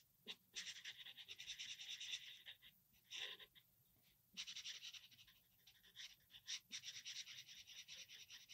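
Faint scratchy rubbing of a felt-tip marker on paper as a small area is coloured in solid with quick back-and-forth strokes: a run of about two seconds, a pause of about a second, then a longer run of about four seconds.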